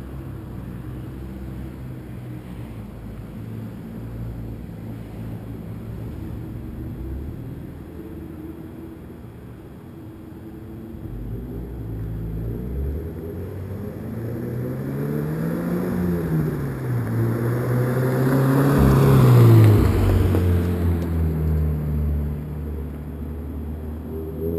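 2013 Scion FR-S's flat-four boxer engine through a Flowmaster exhaust, running steady and low, then revving up twice in the second half, loudest about 19 seconds in, before the pitch drops back to a steady lower note.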